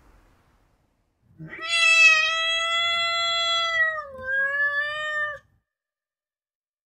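Domestic cat giving one long, drawn-out angry meow, starting about a second and a half in and lasting about four seconds. It holds a steady pitch with a short dip near the end.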